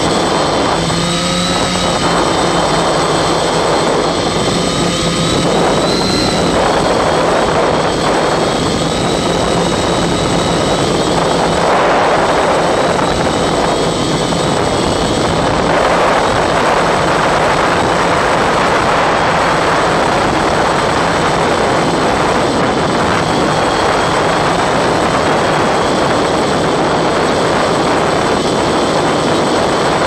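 Multirotor octocopter's electric motors and propellers whirring steadily in flight, with a low hum and a faint wavering high whine. Over them is a loud rushing noise of wind on the microphone.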